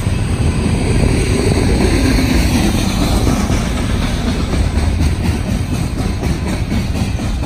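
Freight train rolling past close by: a loud, steady rumble of the train and its wheels on the rails.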